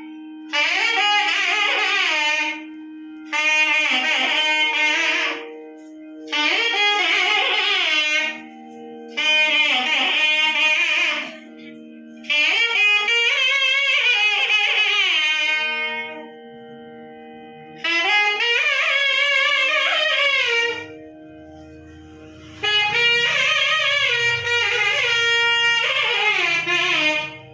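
Devotional music: a reed wind instrument plays wavering melodic phrases of two to three seconds, with short breaks between them, over a steady drone.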